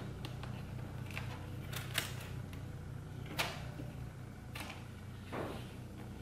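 Duct tape being wrapped and pressed onto a tight bundle of cardboard strips: scattered sharp snaps and crackles, the loudest about two seconds and three and a half seconds in, and a short rasp near the end. A steady low hum sits underneath.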